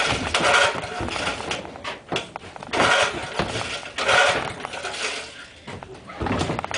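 Small 2 hp tiller engine being pull-started cold: about four or five bursts of the engine turning over and sputtering, each falling away without the engine keeping running. The carburettor has just been redone, but the engine still won't run right.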